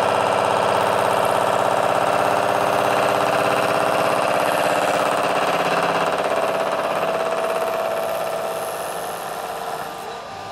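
Five-insert carbide face mill taking a 3.5 mm deep cut across bright mild steel under power feed: a steady, fast-pulsing cutting sound over the hum of the spindle, fading away over the last couple of seconds.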